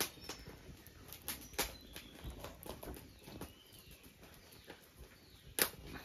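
Firewood burning in a clay brazier, crackling with scattered sharp pops and snaps at irregular moments; the loudest snap comes near the end.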